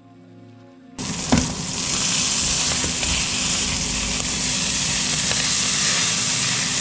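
Ground-beef burger patty sizzling hard in a hot, smoking frying pan while a wooden spatula is worked under it to turn it. The sizzle cuts in suddenly about a second in, over faint music, with a knock shortly after.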